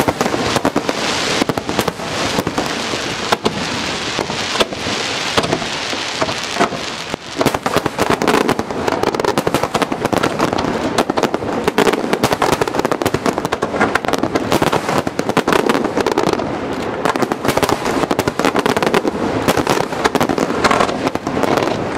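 Aerial fireworks shells bursting in a dense, rapid barrage of bangs and crackling.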